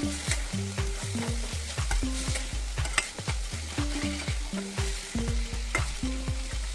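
Food frying in oil in a pan with a steady sizzle, stirred with a spatula that scrapes and clicks against the pan several times a second. Background music with a steady beat and bass notes plays underneath.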